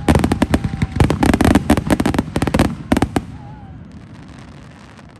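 Aerial fireworks going off in a rapid barrage of bangs, several a second, which stops about three seconds in and leaves a fading rumble.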